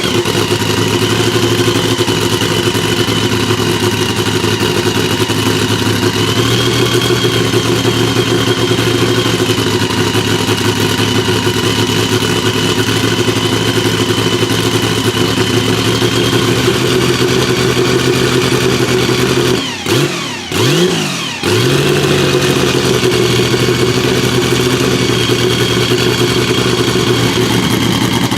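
Porsche 935 K3's twin-turbo flat-six running hard at steady high revs. About 20 seconds in, the engine note cuts out briefly twice, with the revs dropping and rising again, before it settles back to a steady pull.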